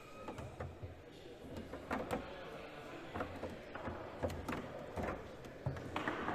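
Table-football (foosball) play on a Leonhart table: the ball knocks against the player figures and the table walls, and the rods slide and clack, in a run of irregular sharp knocks.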